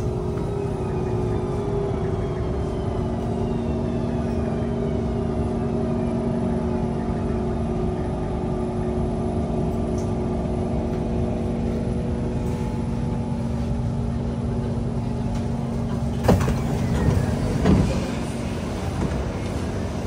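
Kawasaki C151 metro train braking into a station, heard from inside the car. Its motor whine falls in pitch over the first several seconds as it slows to a stop, over a steady hum from the car's equipment. About sixteen seconds in, a clunk and a rushing sound follow as the doors slide open.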